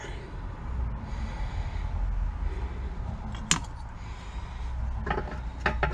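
Metal engine parts clicking and clinking as they are worked loose from an old Briggs & Stratton engine block during disassembly: one sharp click about halfway through and a few quick clicks near the end, over a low rumble.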